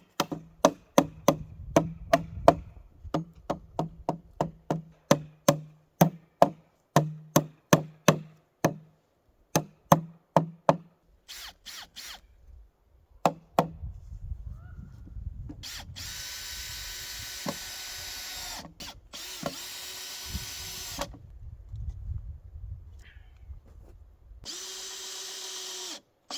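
Hammer driving nails into wood framing, about two blows a second for some ten seconds, then a cordless drill driving screws into the lumber in two long runs, its whine dropping as each screw seats.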